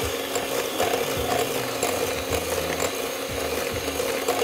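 Electric hand mixer running steadily, its twin beaters whisking butter, sugar and egg in a glass bowl.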